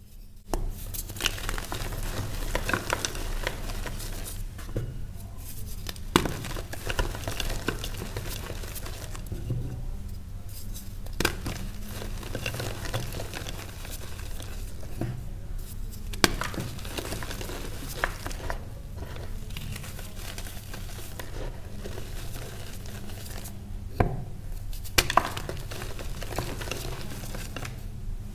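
Reformed gym chalk crushed and crumbled between the fingers: a steady soft crunching and crumbling of chalk and powder, with a sharp snap now and then as a piece breaks.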